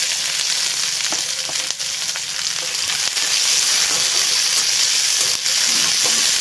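Chopped onions sizzling steadily in hot oil in a steel kadai, stirred with a metal spatula that gives a few light scrapes against the pan.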